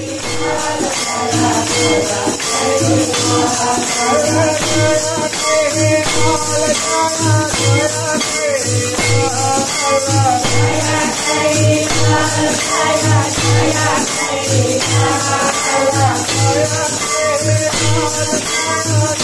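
A crowd of devotees singing a bhajan together, with handheld kartal clappers jingling along and a low, steady beat keeping time.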